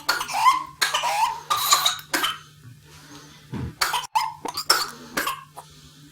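A child's paroxysmal whooping cough (pertussis): a rapid run of coughs, one after another, with short rising-pitched intakes of breath between them, then a few scattered coughs after a brief lull.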